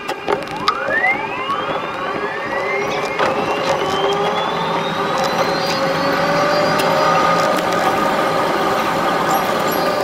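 Keihan electric train accelerating from a standstill, sped up sixfold: the traction motors' whine rises in several pitches at once about half a second in, then levels off high as the train reaches speed, with quick wheel clicks over rail joints.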